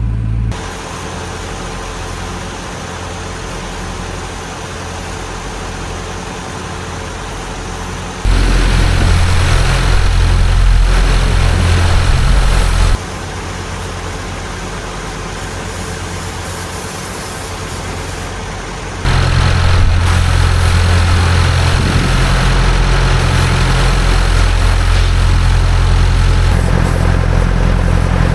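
Tractor engines running steadily at a low idle hum, the level jumping abruptly louder and quieter several times.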